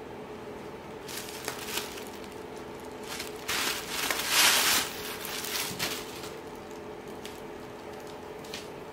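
Rustling and brushing noise as a long straight human-hair weave is shaken out and swept against the microphone, in several bursts with the loudest about four seconds in. A steady low hum runs underneath.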